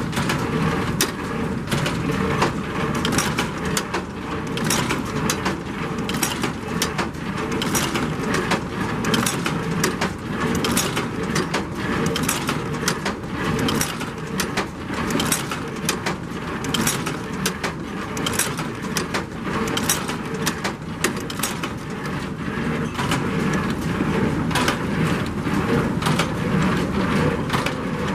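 New Holland 376 square baler running while standing still: a steady mechanical clatter full of rapid, uneven knocks.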